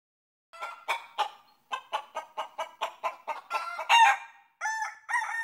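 Chickens clucking in a quick run of short calls that starts about half a second in, then louder, longer drawn-out calls near the end.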